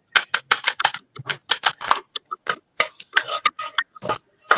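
Chopped garlic frying in hot oil in a wok, crackling with a quick, irregular run of sharp pops.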